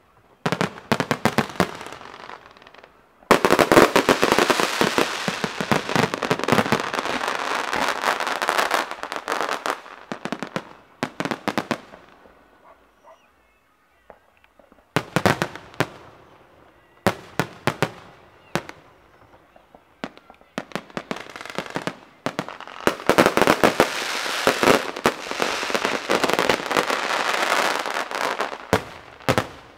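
Fireworks going off as long runs of rapid, dense crackling, about three seconds in for several seconds and again from about 23 seconds. Scattered single bangs fall in between.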